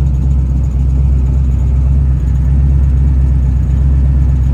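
Twin-turbo 427 cubic-inch Dart LS V8 idling steadily, heard from inside the car's cabin.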